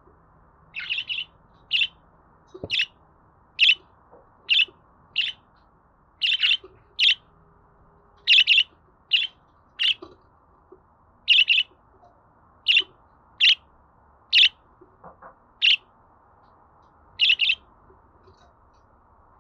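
Budgerigar chirping: short, high, separate chirps, about one a second, with uneven gaps, over a faint steady background hiss.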